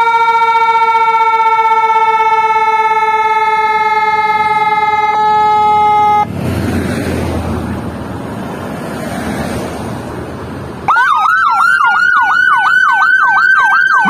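Whelen 295SDA1 dual-tone electronic siren through SA314 and LoPro speakers. For about six seconds it holds a steady tone that drifts slowly down in pitch, then cuts off, and passing road traffic rumbles for a few seconds. Near the end it restarts in a fast yelp of about four sweeps a second.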